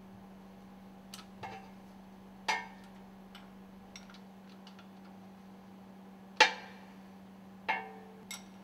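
Metal clinks and clanks of hand tools and bolts as the bolts of a two-stroke engine's piston-rod stuffing box are taken out on a steel work table. There are about eight sharp strikes, three of them louder with a short metallic ring, the loudest about six and a half seconds in. A steady low hum runs underneath.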